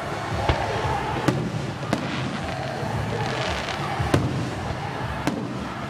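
Aerial fireworks shells bursting overhead: about five sharp bangs spread irregularly through the few seconds.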